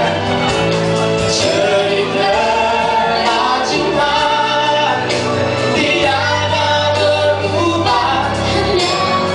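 A female and a male singer performing a Malay pop duet live into microphones over amplified musical accompaniment with held bass notes.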